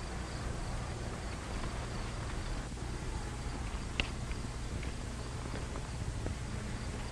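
Steady hiss and low hum of an old film soundtrack, with a single sharp click about four seconds in.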